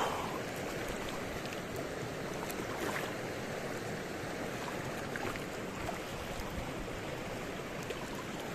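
Shallow river water flowing over stones, a steady rush, with a few faint ticks.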